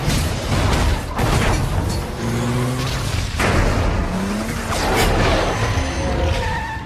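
Action-film sound mix: car engines running hard and tyres skidding, with several heavy booms and crashes over a music score.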